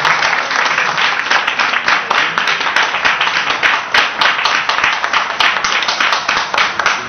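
Audience applauding: many overlapping hand claps in a dense, even run.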